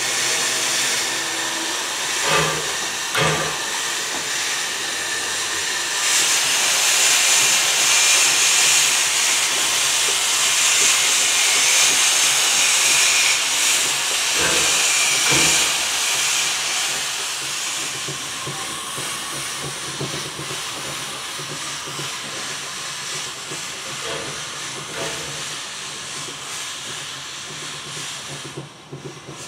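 Heisler No. 6 geared steam locomotive hissing steam. The hiss is loudest through the middle and eases off toward the end, with a few pairs of short dull knocks over it.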